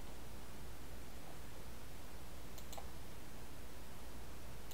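Steady low hum and hiss of the room and microphone, with a few faint clicks about two and a half seconds in and again near the end.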